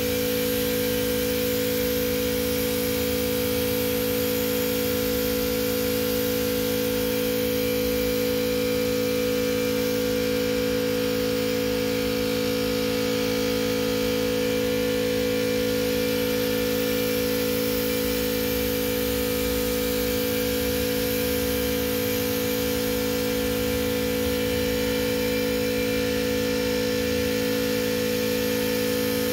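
Air compressor running with a steady, unchanging hum.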